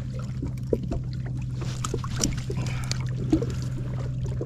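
Jet ski engine idling with a steady low hum, with scattered small clicks and knocks over it.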